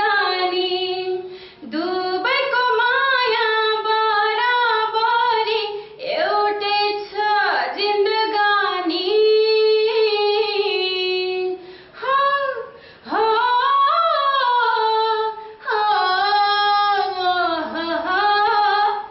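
A woman singing a Nepali song solo and unaccompanied, with long held notes that slide up and down and short pauses for breath between phrases.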